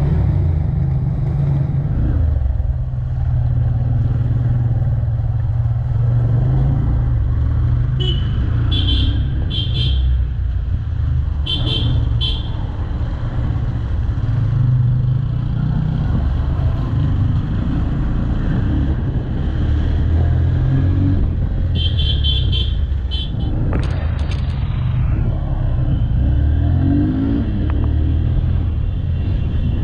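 Honda X-Blade's single-cylinder engine running at low road speed, heard from the rider's seat. Several short high beeps come in pairs about a third of the way in and again past two-thirds.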